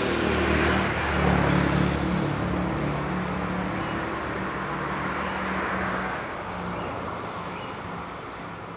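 A vehicle's engine running with a low hum and a hiss, loudest about a second in and then fading away steadily.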